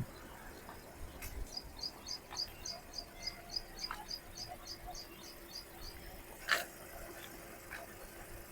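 Faint, high-pitched animal chirping in a quick, even run, about five chirps a second, for several seconds. A single sharp click comes about six and a half seconds in.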